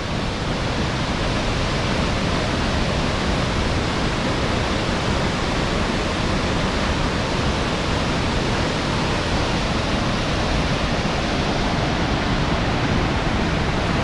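Waterfall rushing: a loud, steady, unbroken rush of falling water.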